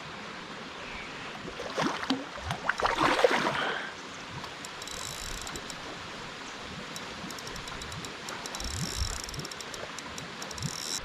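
Outdoor background noise by the water, with a louder irregular burst about two to four seconds in, then a long run of fine, rapid ticking from about five seconds in until near the end.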